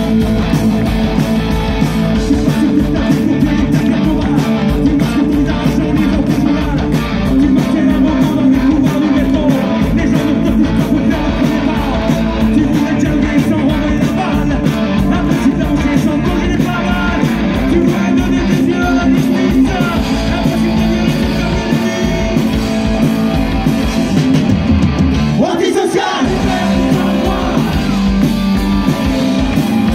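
Live rock band playing a song: electric guitars, drums and keyboard with a singer. Near the end the bass and drums drop out for about a second, then come back in.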